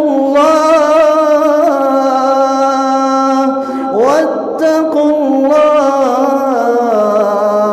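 A man's voice reciting the Quran in slow melodic tajwid chant into a microphone, holding long drawn-out notes. A new phrase begins with a rising pitch about four seconds in.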